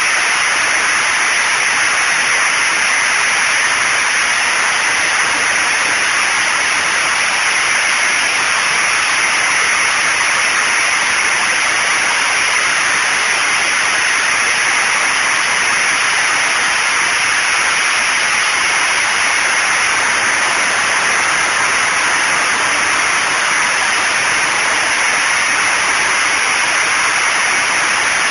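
ED-200 diesel generator's tank-derived V12 diesel engine running steadily under load, very noisy. Close up it comes through as an unbroken, even hiss-like din with no change in pitch or level.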